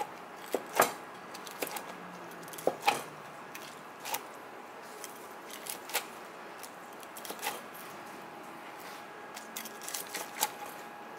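Chef's knife slicing through crisp-skinned pan-fried chicken, with irregular crunches as the blade cuts the crispy skin and sharp taps of the blade meeting the cutting board.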